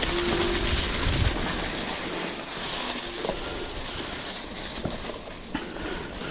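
Mountain bike riding along a dirt trail: steady wind on the microphone and tyre noise, with low thumps in the first second and a few light knocks or rattles later.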